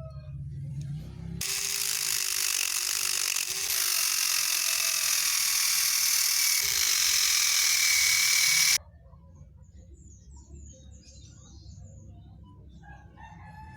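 A small electric power tool runs for about seven seconds, starting about a second and a half in: a high whine that sags a little in pitch over a harsh grinding hiss, then it cuts off suddenly.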